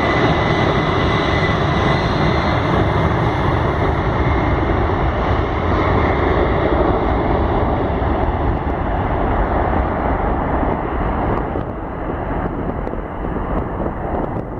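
Three-engine GE CF6-50 turbofan noise from a DC-10-30: a loud, steady jet rush with a thin high whine that fades in the first few seconds. The higher sound dies away and the level drops near the end.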